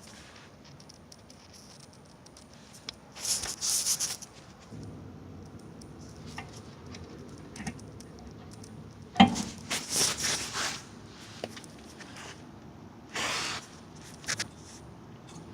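Hand tools and metal brake parts being handled during rear brake pad work: scattered small clicks and a few short bursts of scraping and rattling.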